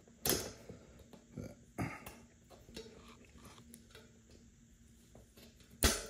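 Metal knocks and small clicks of a BMX front-wheel axle with a thin spacer washer being wiggled into the dropouts of a Bottema fork. There is a knock just after the start, another about two seconds in, faint ticks between, and a sharp, loud knock near the end.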